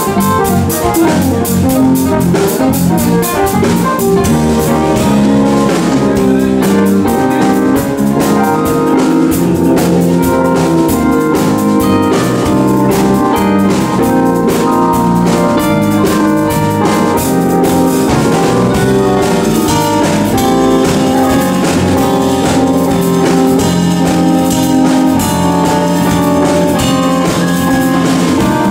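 Live jazz combo playing, the electric keyboard to the fore over drum kit and bass, with a steady cymbal rhythm.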